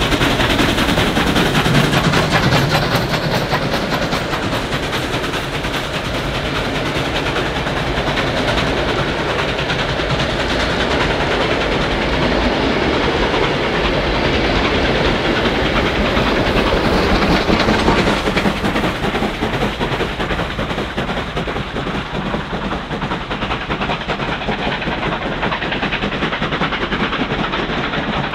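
Victorian Railways steam locomotives working hard up a steep 1 in 50 grade, with rapid, heavy exhaust chuffs. The carriage wheels clatter over the rail joints as the train passes.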